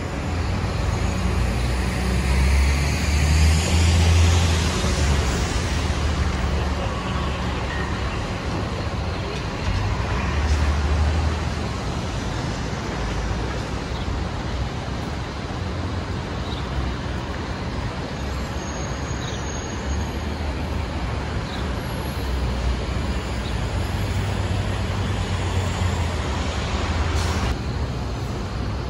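Busy city street traffic: a steady wash of cars, buses and trucks passing. Low engine rumble swells louder a few times as vehicles go by close, first a few seconds in, again around ten seconds, and near the end.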